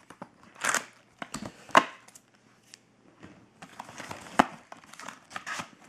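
Cardboard hobby box of trading cards being opened by hand: scattered taps, scrapes and crackles of the cardboard as its top is worked loose, with a denser rustle and one sharp click about four seconds in.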